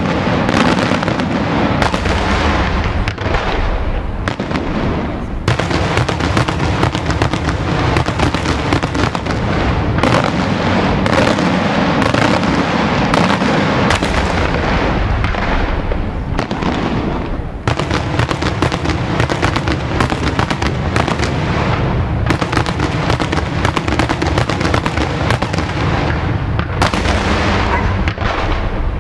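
Daytime aerial fireworks display: a dense, almost unbroken barrage of shell bursts and crackling bangs.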